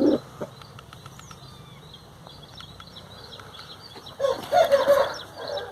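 Aseel chicken calling for about a second and a half near the end, over faint high chirps that repeat throughout.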